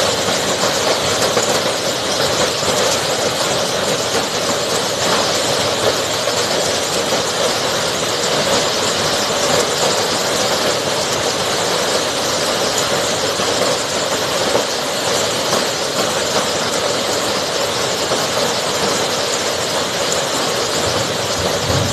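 Marble-sized hailstones falling in a heavy, steady downpour, with no let-up.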